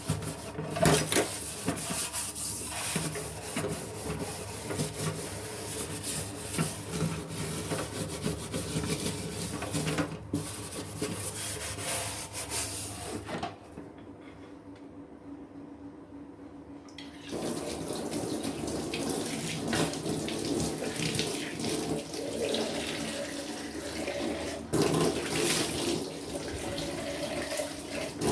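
Kitchen tap running into a sink while containers are washed under it, with clinks and knocks of the containers against the sink. The water stops for about three seconds a little past the middle, then runs again.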